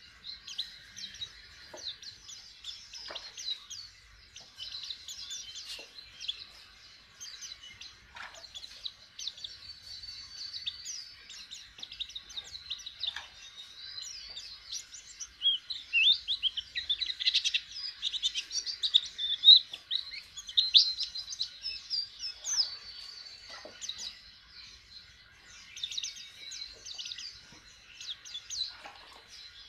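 White-eye (pleci) singing: a rapid, continuous twittering of high chirps and short whistled notes, busiest and loudest about halfway through.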